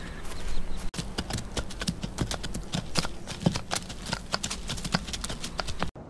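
Hooves of several horses walking on hard, dry ground: an irregular clip-clop of many overlapping hoofbeats. It cuts off abruptly just before the end.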